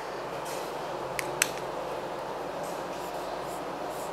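Steady room hiss with two sharp clicks a quarter-second apart about a second in, then faint scratchy strokes of a marker on a whiteboard near the end.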